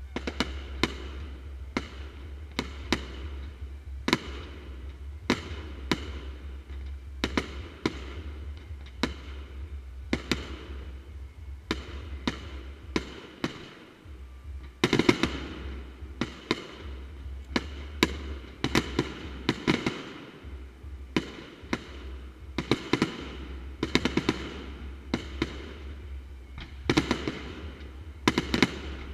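Fireworks display: shells bursting in a steady run of sharp bangs, one to several a second, each trailing off in crackle, over a low steady rumble. A dense cluster of bursts about fifteen seconds in is the loudest.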